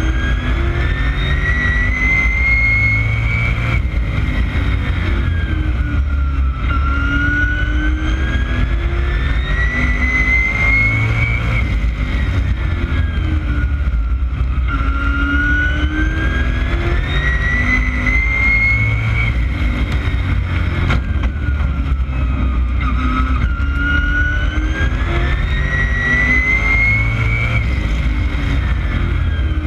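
Street stock race car's engine at racing speed, heard from the cockpit: the revs climb steadily for about four seconds down each straight, then drop as the driver lifts for the turn, four times over. This is the rhythm of lapping a short oval track, over a steady low rumble of the car.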